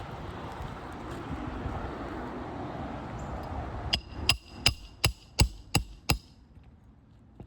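A hammer tapping a 3-tab asphalt shingle: seven quick ringing strikes, about three a second, starting about four seconds in after a steady rushing noise. The tapping tests the shingle for mat breaking and granule loss.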